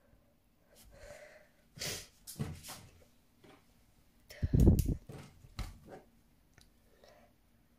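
Plastic shrink wrap on a CD album being poked with a pen and torn open, in several short crackling bursts, the loudest about halfway through, mixed with loud breathing close to the microphone.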